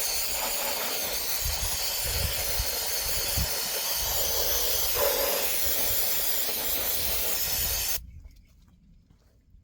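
Aerosol brake cleaner sprayed in one long, steady hiss that cuts off sharply about eight seconds in.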